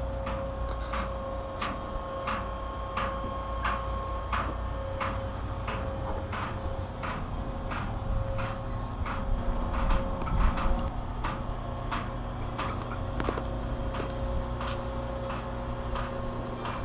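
A machine running with a steady hum and a regular sharp click about every two-thirds of a second.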